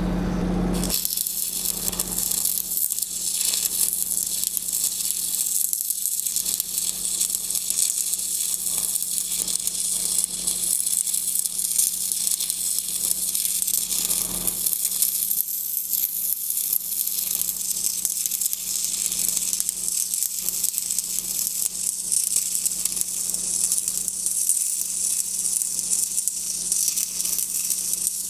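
Stick-welding arc crackling and hissing steadily during a downhill pipeline weld, with the arc striking about a second in. A low machine hum runs under it.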